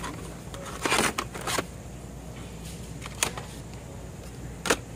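Carded Hot Wheels die-cast cars in plastic blister packs being shuffled on a store shelf by hand: a rustling, clattering cluster about a second in, then two single sharp clicks later on, over a low steady hum.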